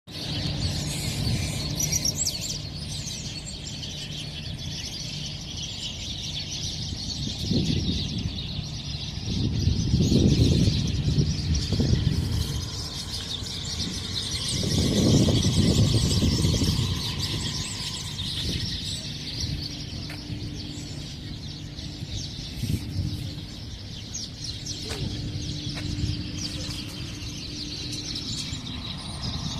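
Outdoor ambience of birds chirping over a steady high-pitched background, with a low rumble that swells up twice, about a third of the way in and again around the middle.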